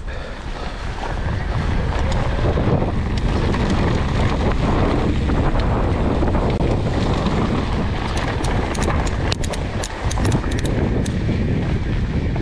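Wind buffeting the microphone over a steady low rumble of a mountain bike riding on trail, with a run of sharp clicks and rattles from about eight to eleven seconds in.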